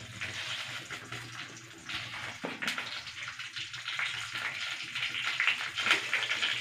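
Bay leaves and chillies sizzling and crackling in hot mustard oil in a wok over a gas flame. The sizzle grows louder about two seconds in.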